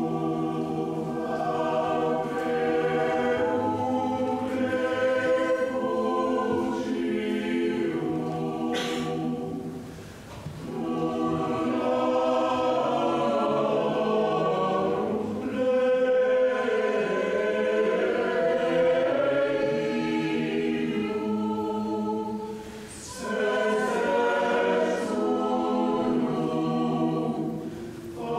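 Mixed choir of men's and women's voices singing in a church, in long sustained phrases, with short breaks about ten seconds in and again near 23 seconds.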